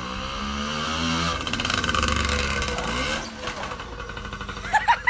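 Small engine of a mini bike running, its revs and loudness climbing over the first couple of seconds. Near the end there are several short, loud cries.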